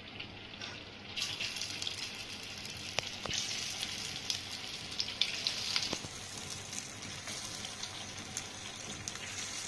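Squares of set besan (gram-flour) batter sizzling as they shallow-fry in hot oil in a pan: a steady crackling hiss that grows louder about a second in, with scattered sharp pops.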